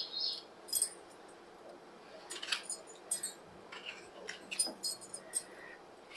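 Scattered light clicks and taps of tomatoes being cut and dropped into a mixer grinder jar.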